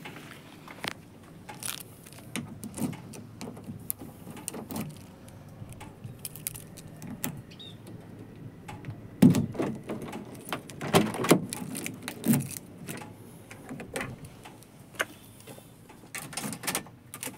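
Keys jangling and a key working in the cab door lock of a Tata Intra V30 pickup, then the door opening and being pulled shut, with a cluster of loud knocks about halfway through among scattered handling clicks.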